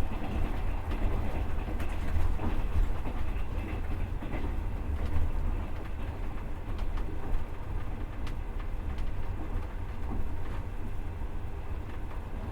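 Passenger train running, heard from inside the carriage: a steady low rumble of the wheels on the track with scattered clicks and knocks of the wheels clattering over the rails.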